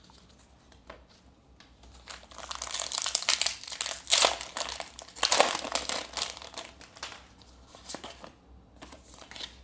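A foil Pokémon booster pack wrapper crinkling as it is handled and opened, in a run of rustling bursts from about two seconds in to about seven seconds, loudest around the middle.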